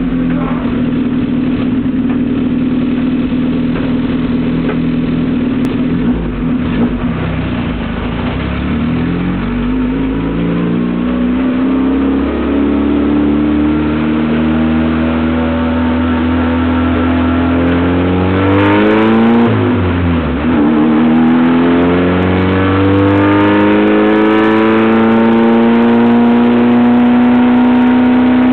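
Fiat 600 race car's small rear-mounted four-cylinder engine heard from inside the cabin, running at steady revs at first, then revving higher as the car accelerates. About two-thirds through the revs drop briefly, then climb again.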